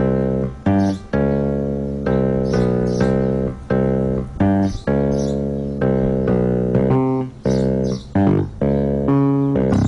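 Background music: plucked guitar and bass notes in a steady rhythm, about two notes a second, each starting sharply and fading.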